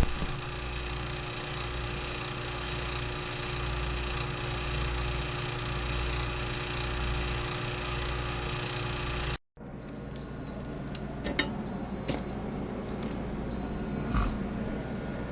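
A refrigeration vacuum pump running steadily on a walk-in freezer system to evacuate it before charging. After an edit about nine seconds in, a steady running noise continues with short high-pitched beeps every second or two.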